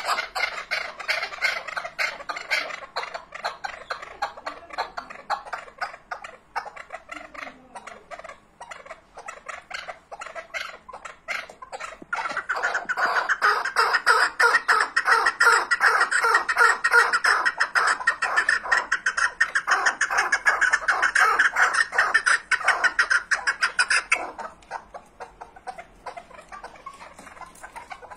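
Chukar partridge calling in a long run of rapid, repeated clucking notes. The calling grows louder about twelve seconds in and falls back again a few seconds before the end.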